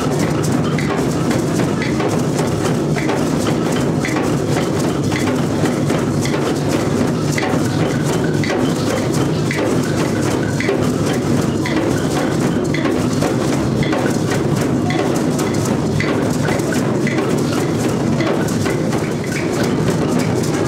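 A large group playing hand drums together in a drum circle: a dense, steady wash of strikes over a sharp clicking pulse of about two beats a second.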